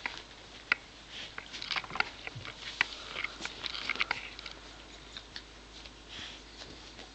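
A mother dog licking and nuzzling her young puppies: soft, irregular wet smacking clicks and sniffs, thickest over the first four seconds and thinning out after.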